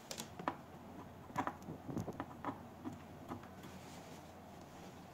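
Light clicks and taps of cable plugs being pushed into sockets on the back panel of a cavitation slimming machine, with the cables knocking about as they are handled; the clicks come in a cluster over the first three seconds or so, then thin out.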